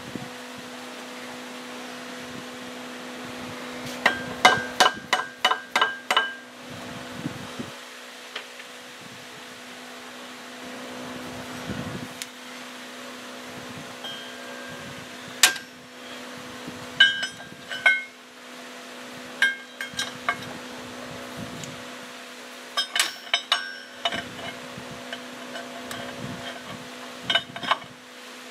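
Metal tools and parts being worked inside an engine lathe headstock gearbox: groups of sharp metallic taps and clinks that ring briefly. The quickest is a run of about eight taps in two seconds, about four seconds in, with scattered single taps and small clusters after it.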